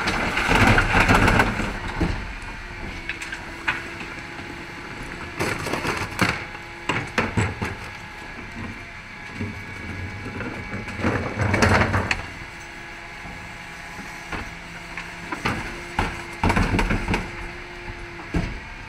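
Refuse truck's Terberg TA-DE bin lift tipping wheelie bins into the hopper: four loud clattering crashes as bins are emptied and knocked against the lift, with a steady hum and the truck's low running underneath between them.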